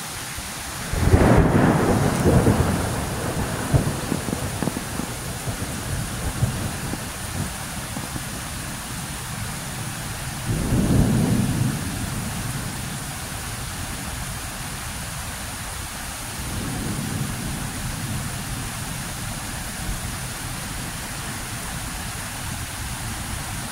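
Thunder rumbling over steady rain: a loud peal about a second in that rolls away over several seconds, a second shorter rumble about ten seconds in, and a fainter one later.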